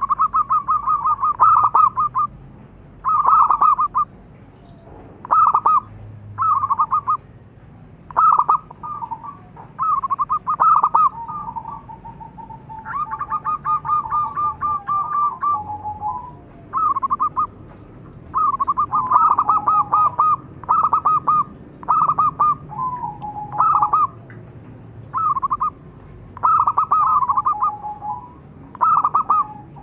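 Zebra dove (perkutut) cooing. Phrases of rapid staccato notes about a second long come every second or two, some trailing into a lower, drawn-out note.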